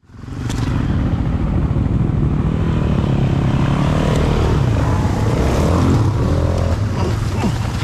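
Dirt bike engines running, one close by, with the engine pitch rising and falling near the end.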